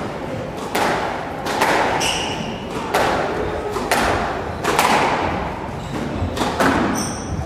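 Squash rally: the ball striking rackets and the walls about once a second, each hit ringing briefly in the glass-walled court, with a couple of short high squeaks from shoes on the wooden floor.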